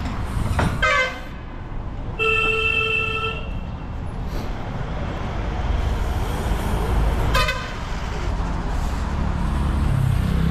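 Vehicle horns honking in street traffic: a short toot just under a second in, a steady horn blast of about a second starting about two seconds in, and another short toot about seven seconds in, over a low traffic rumble that grows near the end.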